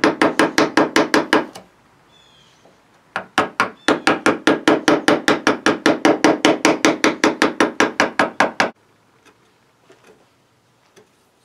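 Small hammer tapping a chisel in quick, even strokes, about seven a second, cutting a recess into a walnut gunstock. The tapping stops about a second and a half in, starts again about three seconds in, and stops near nine seconds, leaving a few faint ticks.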